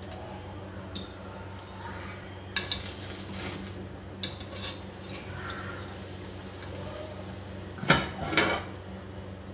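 Wire skimmer clinking and scraping against the inside of a steel pressure cooker while boiled beef pieces are fished out of the stock. There are scattered sharp clanks, the loudest cluster near the end, over a low steady hum.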